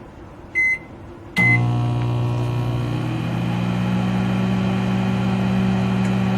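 Two short high beeps from a microwave oven's keypad; with the second, about a second and a half in, the microwave starts and runs with a loud steady hum.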